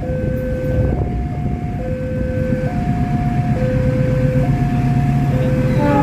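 Diesel locomotive engine running with a low drone that grows gradually louder. Over it, an electronic two-tone warning signal alternates between a lower and a higher tone, switching just under once a second, like a railway crossing alarm.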